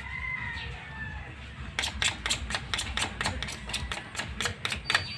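A quick, even series of about a dozen sharp taps or knocks, roughly four a second, starting about two seconds in.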